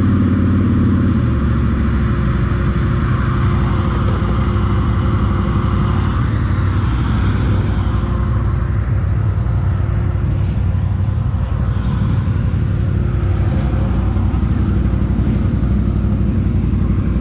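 ATV engine running steadily at low trail-crawling speed.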